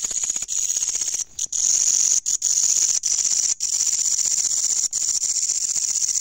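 Katydid stridulating, very loud at close range: a continuous high-pitched, rapidly pulsing buzz that breaks off briefly several times, the longest break about a second and a half in.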